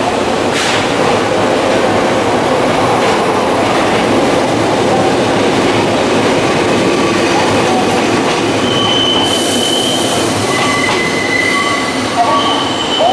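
Kobe Electric Railway (Shintetsu) train running past the platform, a steady rumble of wheels on rail. About two-thirds of the way in a high-pitched wheel squeal joins it, two shrill tones sounding on and off.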